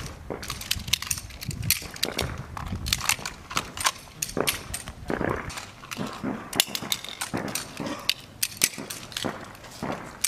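Pistol shots from a line of shooters firing on a range: many sharp, irregular cracks, some overlapping, going on throughout.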